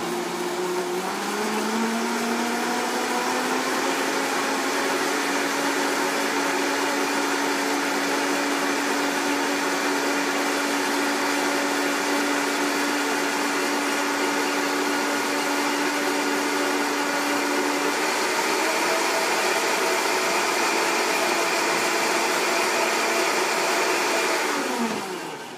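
High-speed countertop blender blending soaked pistachios and water into pistachio milk. The motor's pitch rises as it speeds up over the first few seconds and steps up again about eighteen seconds in. It then winds down and stops near the end.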